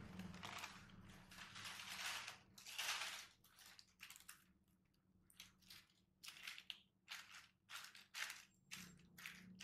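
Parchment paper rustling and crinkling as it is laid over raw hamburger patties and smoothed down by hand: a few longer rustles at first, then a quick run of short crinkles.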